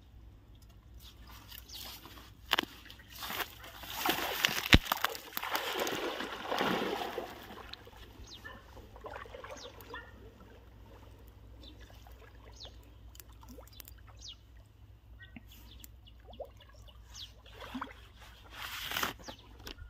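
Water splashing and sloshing in a shallow, muddy pond as someone gropes by hand for fish. It is loudest from about four to seven seconds in, with a sharp knock near five seconds and another splash near the end.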